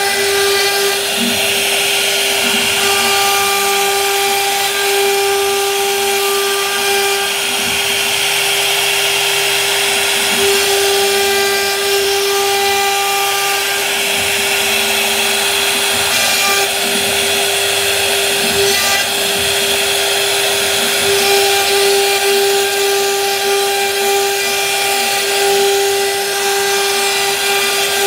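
CNC router spindle running with a steady high whine as its bit cuts grooves into a wood panel, with a continuous hiss from the cutting.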